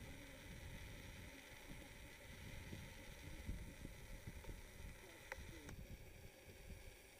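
Faint, uneven low rumble of wind buffeting the microphone, with a couple of small clicks near the end.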